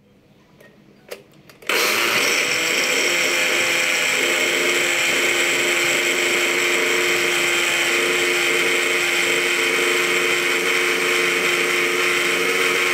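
Countertop electric blender blending a strawberry milkshake: a couple of faint clicks, then the motor starts just under two seconds in and runs steadily at full speed.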